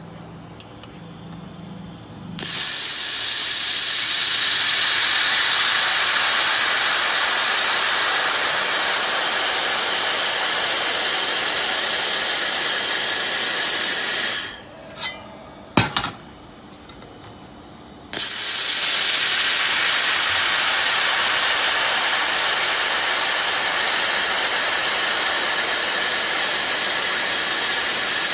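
Handheld 1000 W fiber laser welder welding 5 mm stainless steel: a loud, steady hiss that starts about two seconds in after a low hum. It stops for a few seconds around the middle, with a couple of short clicks, then starts again and runs on.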